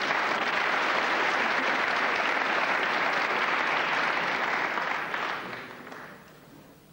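Snooker arena audience applauding, holding steady and then dying away about five to six seconds in.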